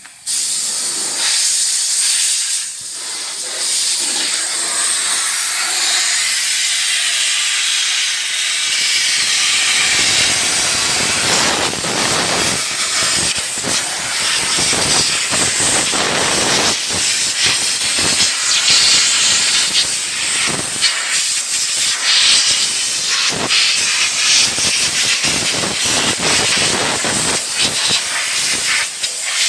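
Loud, steady hiss of compressed air rushing out from an air compressor's line, filling out lower from about ten seconds in.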